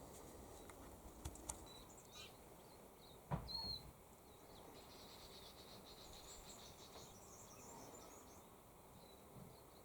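Quiet background ambience with a few faint, high bird chirps, two light clicks about a second in and a short soft knock about three seconds in.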